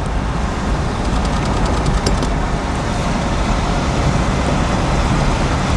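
Road noise inside a moving car: a steady rumble of tyres and engine, with a few faint ticks about a second or two in.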